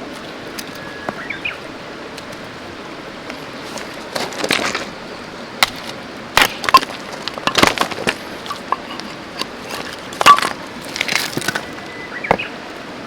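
Wood cracking and snapping in irregular clusters of sharp knocks, as when firewood is broken or split, over a steady hiss.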